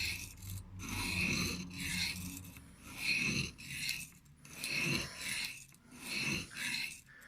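Knife blade being drawn across an oiled Arkansas sharpening stone in a series of rasping strokes, roughly one a second.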